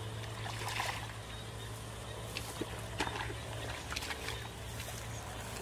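Hands sloshing and groping in shallow muddy paddy water, with several short splashes over a steady low hum.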